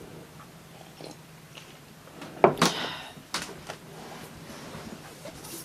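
Quiet cabin with faint sipping, then a sharp knock about two and a half seconds in as a ceramic mug is set down on a wooden table, followed by a couple of lighter clicks.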